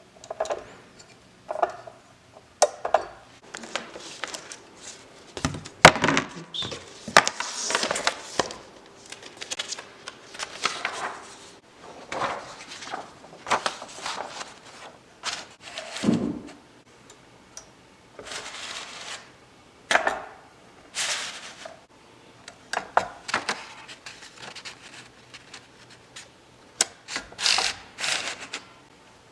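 1915 French Typo manual typewriter being worked by hand: an irregular run of mechanical clicks, clacks and thunks, with a short falling sliding sound about halfway through.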